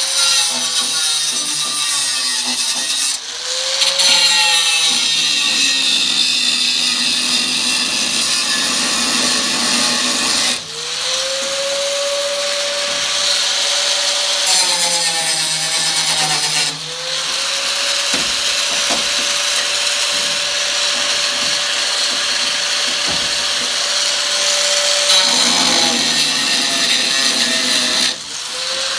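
A high-speed handheld power tool running on the sheet steel of a car's rear quarter panel during rust repair, with a steady whine and a hiss. It stops briefly and spins back up about four times.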